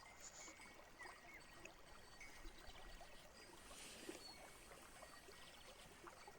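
Near silence: faint background hiss with a few faint, short high chirps scattered through it.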